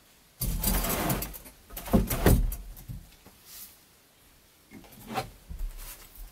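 A wooden board scrapes as it slides along another plank, then knocks down onto it twice. A few lighter wooden knocks follow near the end.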